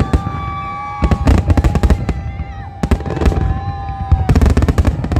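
Fireworks going off in a rapid, irregular run of bangs and crackles that grows densest near the end, over a long steady held tone.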